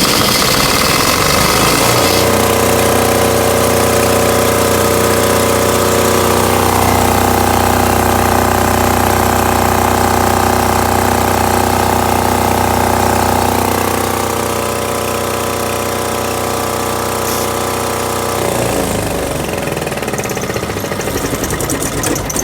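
Tahoe 7000 LXH diesel generator engine running steadily, just after it was coaxed into starting. Its speed rises about six seconds in and drops back around fourteen seconds, then the engine shuts down and coasts to a stop, followed by a fast rattling near the end. It started only once the white wire at the starter relay was wiggled: the owner takes the relay connection for the fault.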